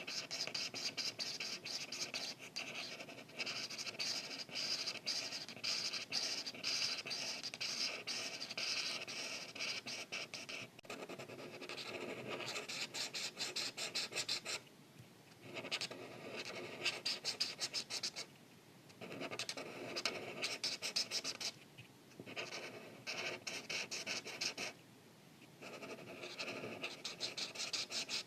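Art marker nib scratching across paper in rapid back-and-forth coloring strokes. The strokes come in runs, broken by a few short pauses where the marker lifts off.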